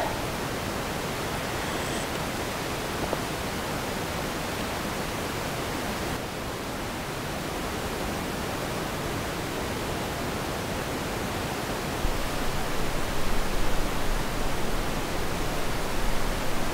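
Steady, even rushing noise with no distinct events. About twelve seconds in, a low, uneven rumble joins it and the sound grows louder.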